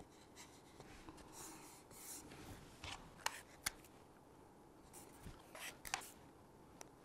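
Faint rustling and crackling of Tamiya masking tape being pulled, laid down and pressed onto a paper-covered model rocket fin, in a string of short bursts with a few sharp ticks.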